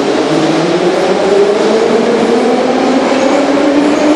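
Kyiv metro train pulling out of the station, its traction motors giving a whine that rises steadily in pitch as it gathers speed, over the rumble of the wheels.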